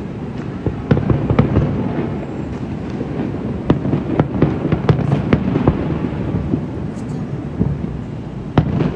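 Fireworks going off: a quick, irregular run of sharp pops and bangs over a steady low rumble.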